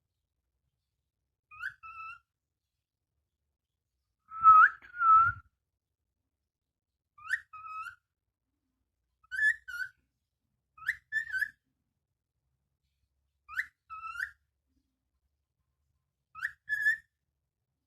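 A two-note whistle, a quick upward-sweeping note followed by a short level note, repeated seven times with pauses of about two seconds; the one about four and a half seconds in is louder and rougher. It is a training whistle meant to be copied by a pet parrot.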